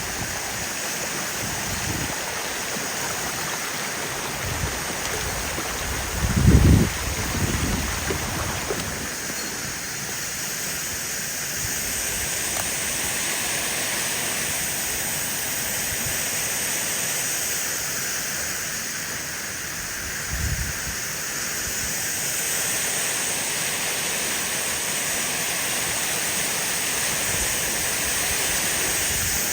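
A waterfall rushing steadily. Two short low bumps, one about a quarter of the way in and a smaller one about two-thirds in, stand out from the rush.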